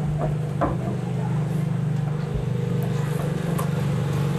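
A steady, low engine hum, with a couple of light clicks in the first second.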